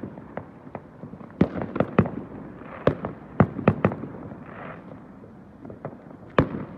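Fireworks exploding: a run of sharp bangs at irregular intervals, several in quick succession between about one and four seconds in and another loud one near the end, with a short hiss midway.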